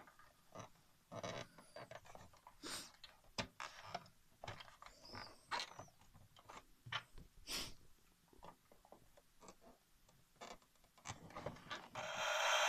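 Faint irregular clicks and rustles of fingers working the plastic sound panel of a 1979 Fisher-Price Alpha Probe toy shuttle. Near the end a loud steady electronic hiss starts: one of the toy's sound effects.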